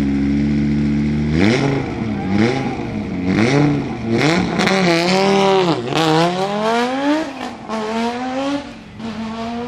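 Audi Sport quattro S1 rally car's turbocharged five-cylinder engine revved while standing still: a steady held note for about a second and a half, then blipped up and down repeatedly, rising and falling in pitch, before settling back near the end.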